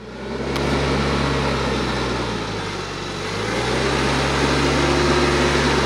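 TYM T474 compact tractor's diesel engine running steadily as it pulls a land plane across dirt. The engine note sags slightly about halfway through and then picks back up.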